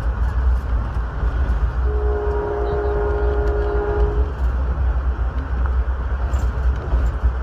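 Passenger train heard from inside the coach, its wheels on the rails making a steady rumble. About two seconds in, the locomotive horn sounds one steady chord blast lasting a little over two seconds.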